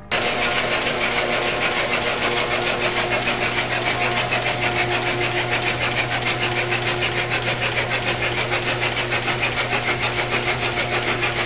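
Rebuilt Chevy II 181-cubic-inch four-cylinder engine being turned over slowly on a Simtester, motored by its electric drive rather than running on its own, for break-in. A steady hum with a rhythmic pulsing several times a second.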